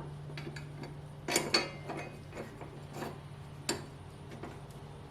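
Metal clinks and knocks, a few irregular ones with the loudest cluster about a second and a half in, as the mower blade is fitted back onto the spindle and its bolt set in place.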